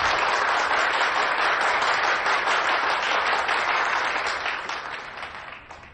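A crowd applauding steadily, then fading out over the last second or two.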